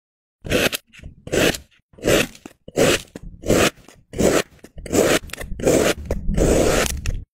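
Flat metal blade slicing through a cone of kinetic sand, a crisp scraping crunch with each cut. The cuts come about once every 0.7 s, then run longer and almost without a break over the last two seconds.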